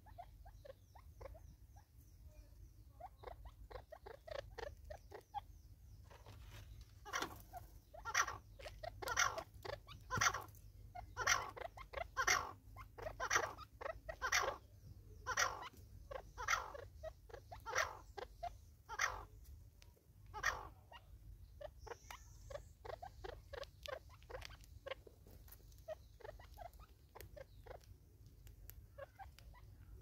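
An animal calling in a long series of sharp, harsh notes, about one a second, which build up over the first few seconds and then slowly fade away.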